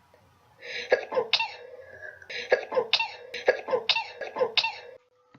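A person coughing in a quick run of about a dozen short, sharp coughs over some four seconds, cut off abruptly near the end.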